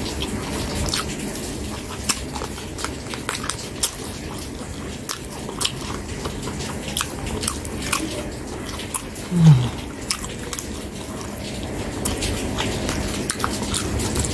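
Close-up chewing and biting of meat eaten off the bone by hand, with wet mouth clicks and smacks throughout. About nine and a half seconds in, a brief low hum falls in pitch.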